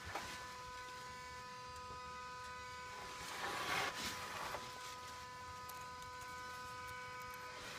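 Steady electric hum from under a shut-off 2016 Ford F-250 Super Duty, several fixed pitches buzzing together; the owner can't place it and hopes it is the normal evaporative purge running after shutdown. A brief crunching rustle comes about three and a half seconds in.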